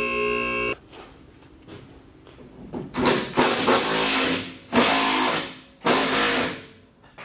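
Background music that cuts off shortly in. Then, about three seconds in, a pneumatic shop tool runs in three bursts of one to one and a half seconds each, with a fast mechanical rattle.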